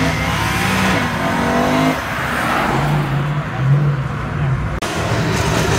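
Performance cars accelerating hard away, engines revving and rising in pitch as they pull through the gears. The sound breaks off abruptly near the end.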